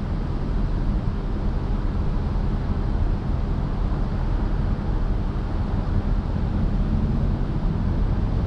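Steady low rumble of an idling vehicle engine, with no sudden events.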